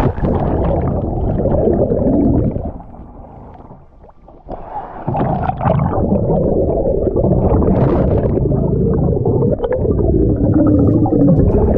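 Underwater sound of a diver breathing through a hookah air regulator: exhaled bubbles rumbling and gurgling. It eases off for about two seconds a few seconds in, then resumes.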